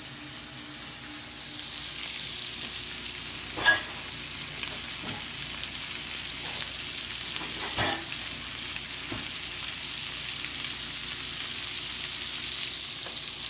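Steak searing in butter and oil in a hot skillet, a steady frying sizzle. A few light clicks and knocks come through it, the sharpest about four seconds in.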